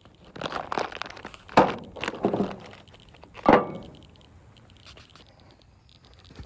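A handful of hard knocks and thumps, the loudest two about a second and a half and three and a half seconds in, followed by faint rustling.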